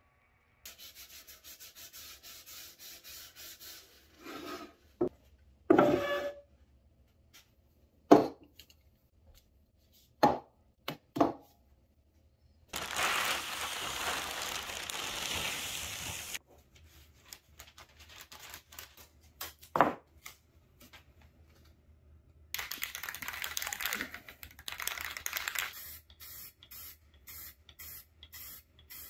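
Workshop sounds from working a pine project: a few sharp knocks of wood, stretches of steady rubbing or hissing, and, near the end, a quick run of short hisses from an aerosol spray paint can.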